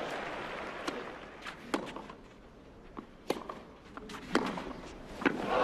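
Tennis serve and baseline rally on clay: sharp pops of racket strings hitting the ball about once a second, the loudest near the end, with fainter ball bounces between them over a hushed stadium crowd.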